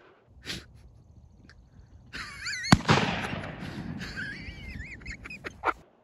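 A single shotgun blast about three seconds in, ringing out afterwards, fired at a wild turkey on the wing. Wavering high bird calls come just before and after the shot, and there is a short knock near the start.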